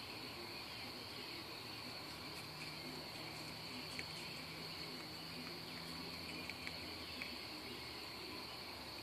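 Crickets trilling steadily at one high pitch, with a few soft clicks in the middle.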